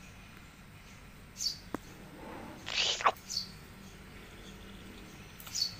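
Instant noodles slurped into the mouth off a fork about halfway through, after a single light click of the fork. Short high bird chirps recur every two seconds or so.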